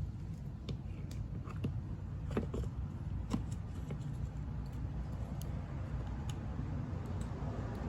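Scattered light clicks and clinks of hand tools and small metal parts being handled while a small-engine carburetor is swapped, over a steady low hum.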